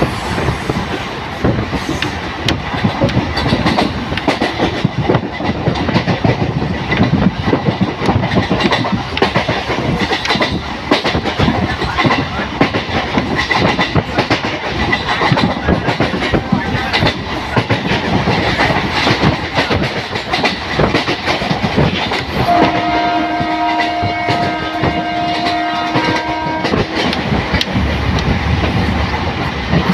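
MEMU commuter train running at speed, heard from on board: the wheels clatter over the rail joints under a steady rumble. About 22 seconds in, a train horn sounds for around four seconds.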